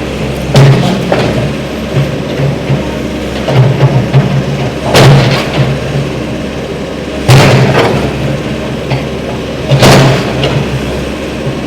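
Demolition machinery at work: a heavy diesel engine revving in surges, with repeated loud crashes and bangs of breaking building material, about five big ones.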